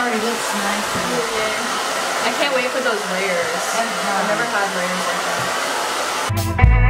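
Hair dryer blowing steadily, with a loud even rush of air.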